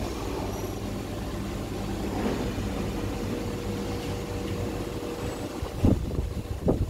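Steady low hum of a running EDM machine, with a faint thin tone held for a couple of seconds in the middle. Two short knocks come near the end.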